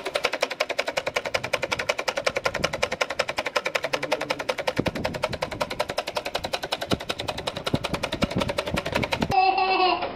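Fish-tail toy boat's small battery motor and crank flapping its rudder: a fast, even puck-puck clicking. Near the end it gives way to children laughing.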